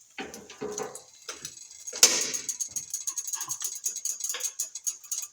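Kitchen clatter of cookware and utensils: scattered knocks and clicks, with one sharp clank about two seconds in.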